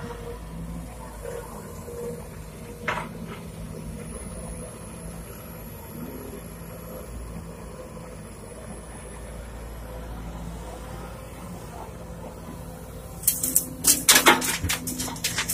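Sumitomo SH210 hydraulic excavator's diesel engine running steadily as the machine swings and digs, with a single knock about three seconds in. Near the end, a burst of loud clattering impacts as a bucketful of earth drops into the steel bed of a dump truck.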